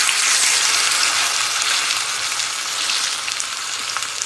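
Whole seasoned chicken searing in very hot vegetable oil in a cast-iron skillet: loud, steady sizzling with scattered crackles and pops, easing slightly after the first couple of seconds.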